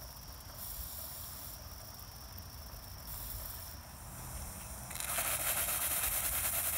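Steam from a Cotswold Heritage Perseus model steam engine setup: a faint steady hiss, then about five seconds in a much louder steam hiss starts suddenly and keeps going as steam is let out.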